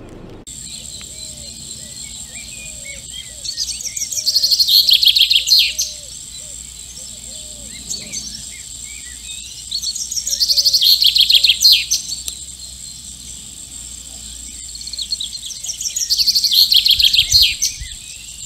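Male common chaffinch singing its advertising song to attract a mate, three times, each phrase about two and a half seconds long: a rapid run of trilled notes that drops in pitch and ends in a flourish.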